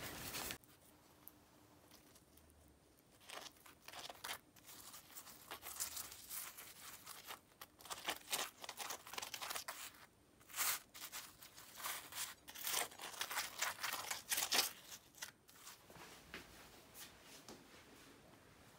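Metal spoon spreading coconut oil over a stack of dry-pan-fried chudu: soft, irregular scraping and crinkling strokes against the crisp flatbread crust, in short bursts.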